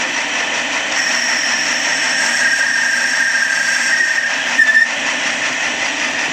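Lathe running steadily while turning a Teflon ball-joint bushing, with a high whine that strengthens about a second in and a brief, sharper squeal just before five seconds in.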